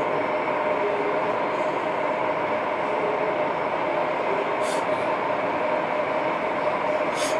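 Airbus A320-214's CFM56 jet engines running at idle: a steady whining hum. Two short high ticks come about five seconds in and near the end.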